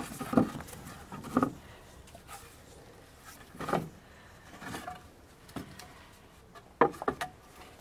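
Wooden slats knocking and scraping against the wooden frame of a compost bin as they are lifted out of its front and stacked. The knocks are scattered, with a few sharp ones near the end.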